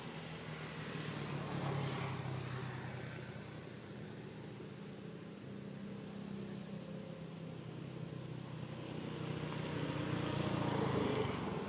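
A motor vehicle engine running with a steady low hum, growing louder about two seconds in and again near the end as it passes.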